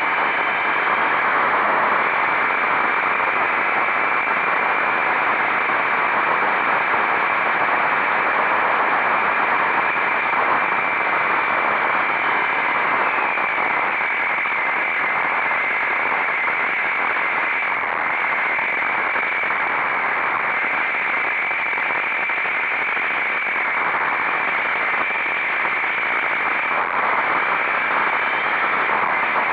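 Steady rushing wind noise over the microphone of a motorcycle riding at speed, drowning out the engine.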